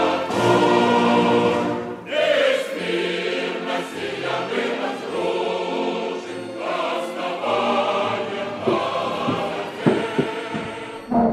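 Choral music: a choir singing slow, held chords that change every couple of seconds.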